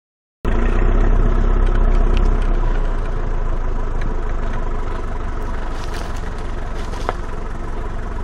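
Land Rover Series IIa engine running as the vehicle drives along a rough dirt track, with a few light knocks and rattles now and then. The sound cuts in abruptly about half a second in.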